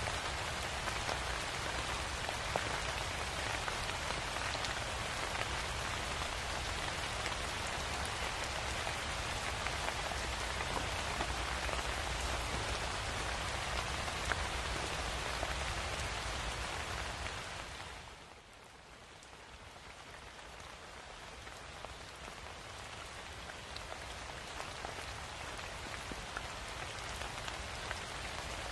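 Steady rain, an even hiss of drops on a surface. About two-thirds of the way through, it fades down sharply, then slowly swells back to full level.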